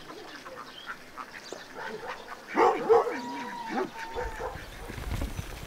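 Animal calls, loudest a little under three seconds in and followed by a briefly held high tone.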